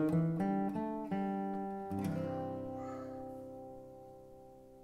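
Acoustic guitar outro music: a few picked notes, then a final chord left ringing and slowly fading out.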